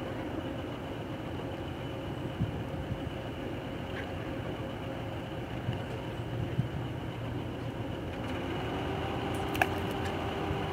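Steady low rumble of a purse-seine fishing boat's diesel engine as it manoeuvres away from the quay, with a faint engine tone that rises slightly a few seconds before the end.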